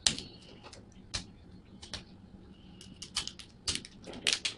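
Small plastic toy capsule egg being worked open with the fingers: scattered sharp plastic clicks and taps, coming quicker near the end.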